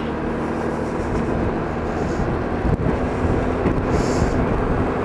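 Yamaha X-City 250 scooter's single-cylinder four-stroke engine running steadily while riding, under a haze of wind and tyre noise on a wet road. There is a brief hiss about four seconds in.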